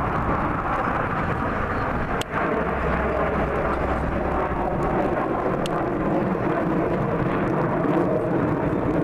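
Airplane engine noise from an aircraft flying its display, a steady loud rumble that dips briefly about two seconds in.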